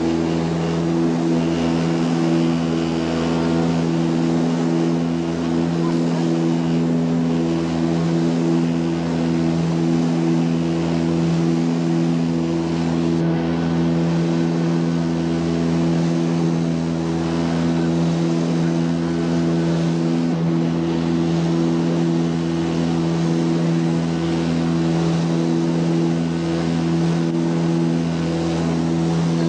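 Steady drone of the Antonov An-24's two turboprop engines and propellers, heard from inside the cabin, with a slow, uneven throb underneath.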